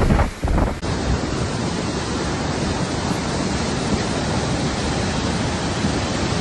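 Muddy flash-flood water rushing in a steady, noisy rush. About a second in, the sound switches abruptly from a gustier rush to a steadier, even hiss of flowing water.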